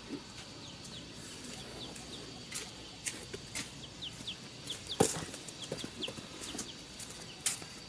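Chickens clucking, with many short high chirps scattered throughout. Several sharp clicks and knocks sound over them, the loudest about five seconds in.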